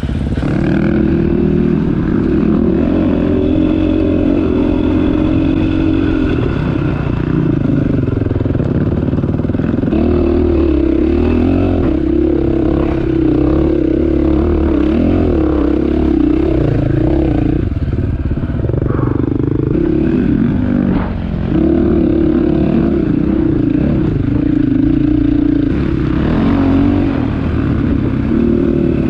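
Dirt bike engine running under throttle, heard from on the bike, its pitch rising and falling as the rider accelerates and eases off. It dips briefly about two-thirds of the way through.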